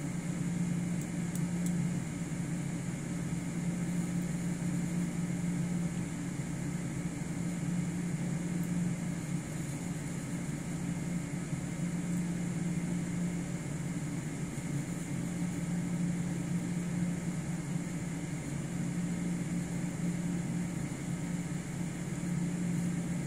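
Mother cat purring steadily while nursing her newborn kittens, a continuous low rumbling purr that swells and eases slightly with her breathing.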